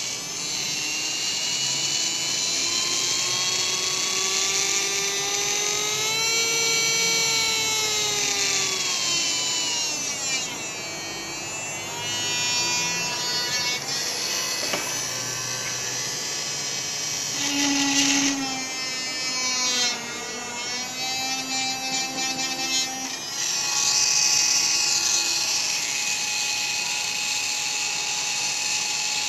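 Small DC motor hand drill with a metal chuck running with a steady whine. Its pitch rises over the first several seconds, falls again, then shifts up and down several more times as the speed is changed on its adjustable 3-12V power supply.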